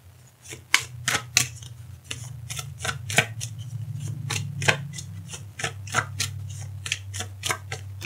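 A deck of oracle cards being shuffled by hand: a run of sharp, irregular clicks and snaps of card on card, about two or three a second, over a low steady hum.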